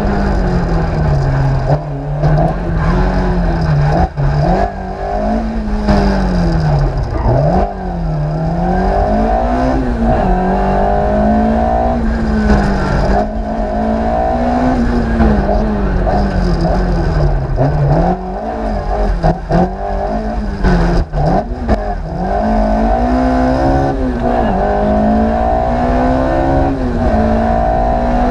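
Ford Escort Mk II's 2-litre naturally aspirated Cosworth four-cylinder engine heard from inside the cabin, driven hard, its revs climbing and dropping over and over.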